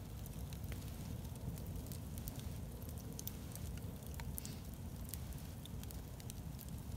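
Log campfire crackling, with scattered sharp pops and clicks over a steady low rumble.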